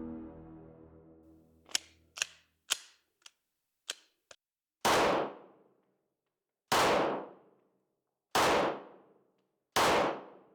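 Pistol fired four times in slow, deliberate precision shots about one and a half to two seconds apart, each shot ringing off briefly in the indoor range. Before them comes a run of quieter sharp clicks, and music fades out at the very start.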